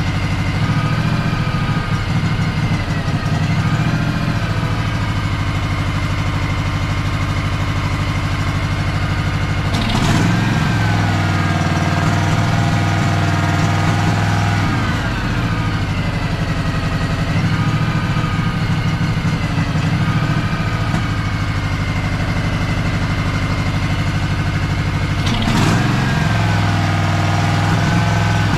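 Honda 16.5 engine of a Craftsman DLT3000 lawn tractor running unevenly, its speed dipping and recovering in waves, with a sharp pop about ten seconds in and another near the end. It is spitting and sputtering, which the owner puts down to water still in the gas.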